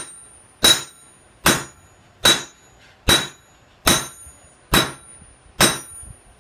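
Hammer blows on hot steel over an anvil: a railroad spike being forged, its axe blade drawn out thinner. Steady, evenly spaced strikes, a little more than one a second, each with a short high metallic ring.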